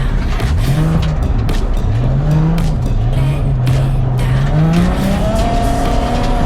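Nissan 350Z's V6 engine revving up and down under hard driving on gravel, its pitch rising and dipping with the throttle and climbing near the end, over tyre and road noise with sharp ticks of loose stones.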